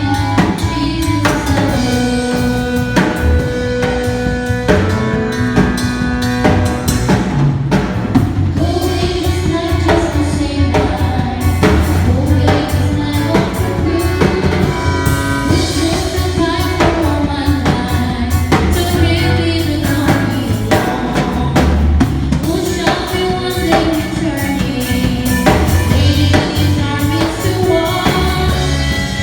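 Live worship band playing a song at a sound check: drum kit keeping a steady beat under bass and a sung melody.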